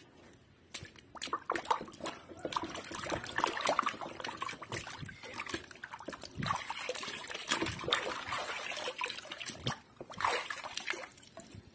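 Water splashing and sloshing in a tub as a hand scrubs a plastic toy crocodile in foamy water. It starts about a second in, with a short pause near ten seconds.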